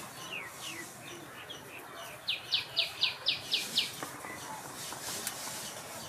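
Songbird chirping: a few falling notes, then, about two seconds in, a loud quick run of about seven sharp chirps, each dropping in pitch, at roughly four a second.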